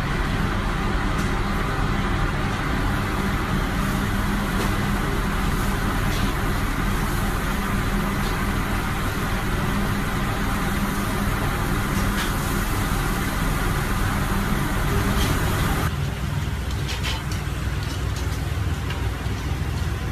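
Steady rushing noise of a commercial grill station and its kitchen extraction, with a low rumble and a few faint clicks. About sixteen seconds in the noise drops and thins.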